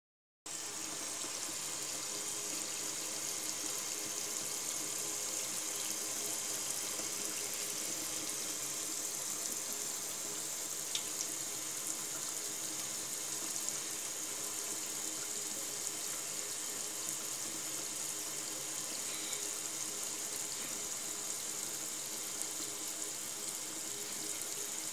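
Kitchen faucet running a thin stream into a stainless steel sink: a steady hiss of falling water.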